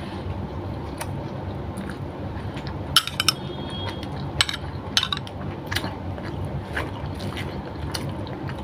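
Close-up eating sounds: a metal spoon clinks against a glass bowl and scoops through vinegary eggplant kinilaw about three seconds in, with a short ring. Scattered mouth clicks and chewing follow, over a steady low hum.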